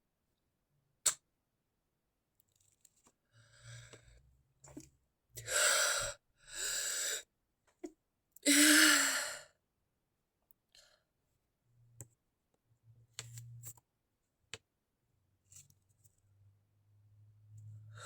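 A person's sharp, breathy intakes of breath, two in quick succession, building to a louder stifled sneeze with a brief voiced catch about nine seconds in. Small clicks and soft rustles come before and after.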